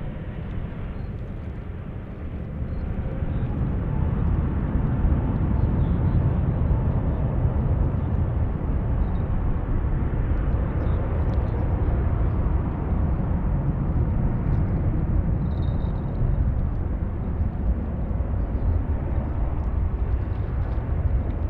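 Airbus A380's four jet engines running as it taxis: a low rumble that grows louder about two seconds in and then holds steady, with a faint whine.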